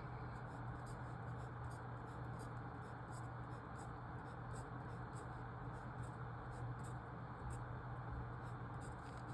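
Faint scratching of a writing instrument on paper: many short, irregular strokes as marks are written. A steady low hum runs underneath.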